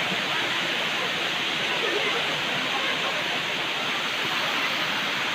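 Steady rush of a waterfall, falling water making an even hiss without a break.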